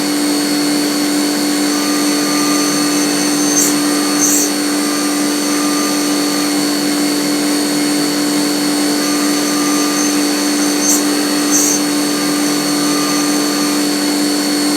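CNC milling machine spindle running steadily with a high whine as its end mill cuts a slot in a titanium tube dry, with no coolant. Two pairs of short high ticks come about four and eleven seconds in.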